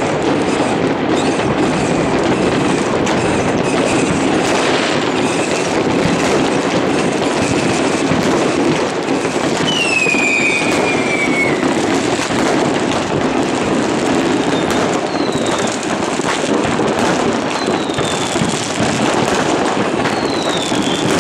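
Dense, unbroken crackling and banging of many fireworks going off all over a city at once, blended into a steady rumble. Several whistling fireworks cut through it, each whistle falling in pitch, the clearest about halfway through.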